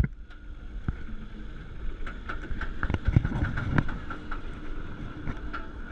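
Bolliger & Mabillard steel hyper coaster train rolling along its track toward the lift hill. There is a low rumble of the wheels with a steady hum and scattered irregular clicks and knocks.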